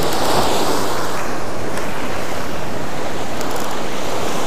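Ocean surf breaking and washing up the beach close by, a steady rushing noise, with some wind on the microphone.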